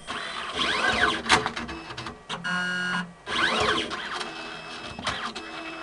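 Motors of an automatic analyzer's robotic pipetting arm driving the arm about: two spells of whining that rise and then fall in pitch, a steady buzzing tone between them, and scattered small clicks.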